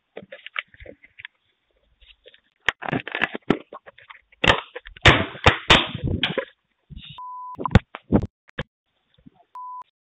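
A Ring video doorbell being wrenched off its mount, its own microphone picking up scraping, knocking and rattling as it is pulled loose. Two short steady beeps follow, one a little after seven seconds in and one near the end.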